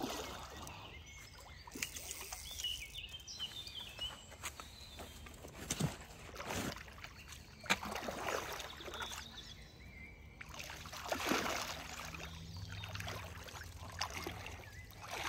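A hooked common carp thrashing at the surface close in, splashing and sloshing the water in irregular bursts a second or several apart as it fights the fly rod near the bank.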